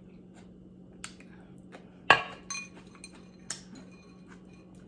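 A spoon clinking against a small clear glass bowl: a few light clinks, with one sharp, louder clink about two seconds in.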